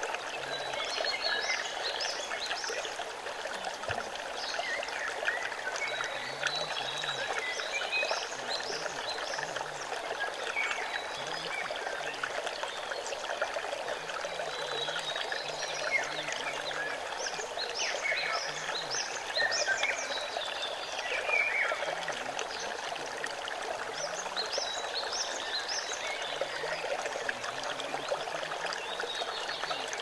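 Shallow forest stream running and splashing over rocks, with short, high chirps of small birds scattered throughout.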